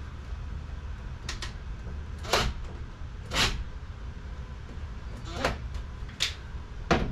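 Handling noises at a wall-mounted panel: about six short knocks and clicks spread through the stretch, over a low steady rumble.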